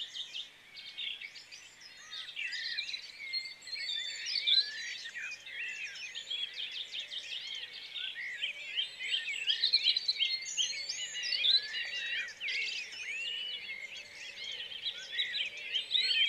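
Many small birds chirping at once: a dense chorus of short overlapping chirps that rise and fall in pitch.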